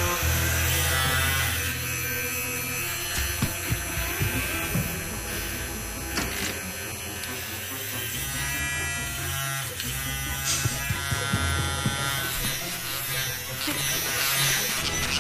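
Electric vibrator buzzing steadily with a low motor hum.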